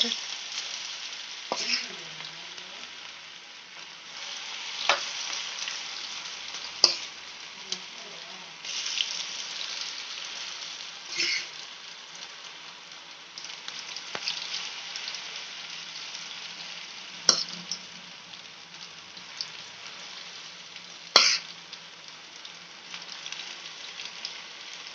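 Batter-coated cauliflower pakodas sizzling steadily as they deep-fry in hot oil, with a few sharp clicks scattered through.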